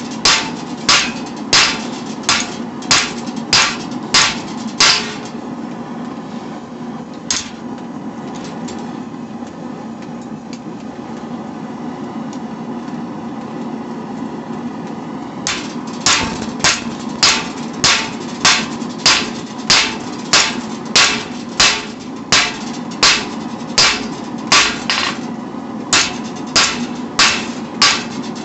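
Hand hammer striking hot steel on an anvil, about two blows a second, flattening the stock for a knife. The blows stop after about five seconds, with one lone blow a couple of seconds later, and resume about halfway through. A forge runs with a steady low rush underneath.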